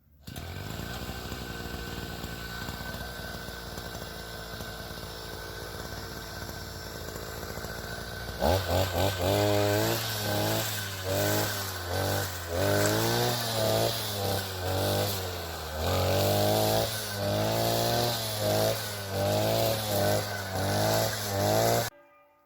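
Petrol grass-cutting machine, a brush cutter, running. For the first eight seconds or so it hums steadily. It then runs louder, its pitch rising and falling again and again as it is worked through the grass, and it cuts off abruptly near the end.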